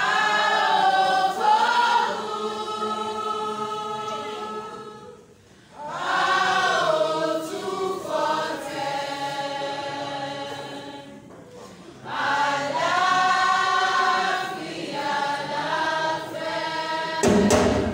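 A group of voices singing together in chorus, in three long phrases of about five seconds each. A sudden thump comes near the end.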